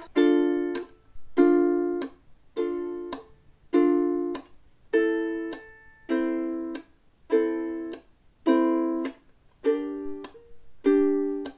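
Ukulele chords plucked with a pinch, all strings at once, about one every 1.2 seconds through Dm, Am, Gm and Dm. Each chord is cut short by a muting tap of the fingers laid back on the strings.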